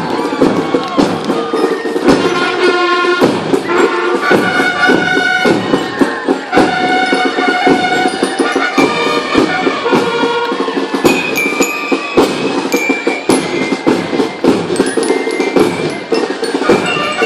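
Band music: frequent drum hits under a bright, bell-like melody of stepped notes.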